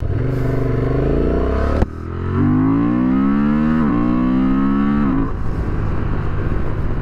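Honda Transalp 750's parallel-twin engine under hard acceleration. The revs climb, then drop sharply at about three upshifts, near two, four and five seconds in, before the engine settles to a steady pull.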